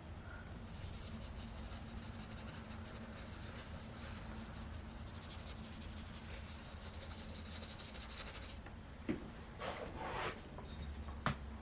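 Watercolour brush stroking and rubbing across sketchbook paper in a soft, faint scratching, with a couple of light taps near the end.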